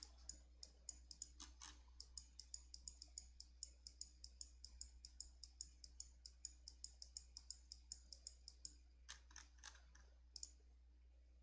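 Typing on a computer keyboard: a faint, quick, even run of key clicks, about five a second, thinning to a few scattered keystrokes near the end. The recording has been passed through a noise-removal filter.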